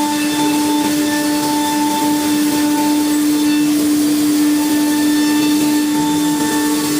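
CNC router spindle running at a steady speed: a steady whine over an even rushing hiss.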